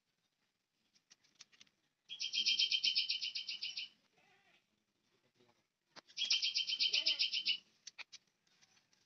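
An animal's call heard twice: each call is a fast run of evenly spaced high chirps, about ten a second, lasting under two seconds. Faint clicks come in between as a knife trims a green plant stem.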